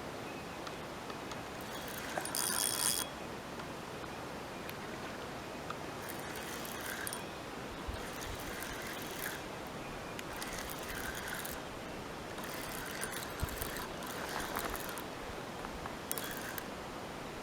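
A fishing reel working in short spells, each a second or less, during the fight with a hooked big carp, over a steady outdoor hiss.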